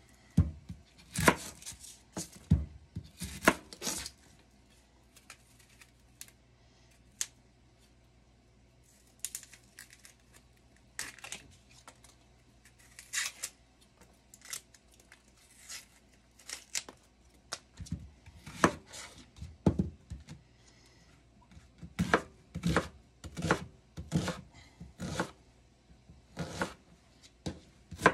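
Chef's knife cutting on a cutting mat in a few sharp strokes, then the papery crackle and tearing of dry onion skin being peeled off by hand, then the knife chopping the onion in quick, regular strokes over the last several seconds.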